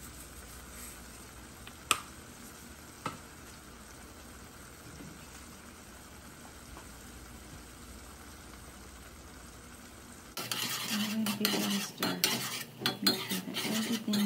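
Pigeon peas cooking in sofrito and tomato sauce in an aluminium pot, a faint steady sizzle with two small clicks. About ten seconds in it gives way to a metal spoon stirring the peas, scraping and clinking loudly against the pot.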